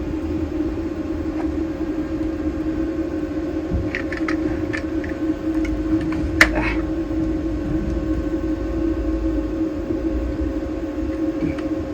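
A steady mechanical hum, with a few light metallic clicks as small screws and latch parts are handled, and one sharper click about six and a half seconds in.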